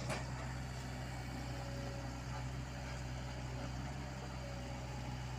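Heavy-equipment diesel engine running steadily at low revs, with one short sharp click just after the start.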